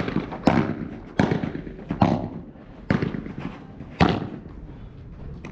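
Padel rally: sharp pops of the ball off padel rackets and the court, five strikes about a second apart, the loudest about four seconds in as the near player hits a forehand.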